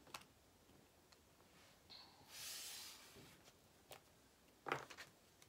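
Near silence, with faint handling of a tarot card deck: a few soft clicks and one short rustling swish of the cards about halfway through.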